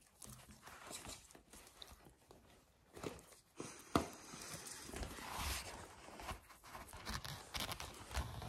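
Puppies scuffling and mouthing at trouser legs and a hand: scattered small clicks and rustling, with one sharp click about four seconds in.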